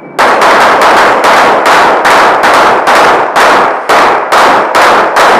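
A shot timer's start beep cuts off and rapid pistol fire follows, about four shots a second, very loud and echoing off the concrete of an indoor range.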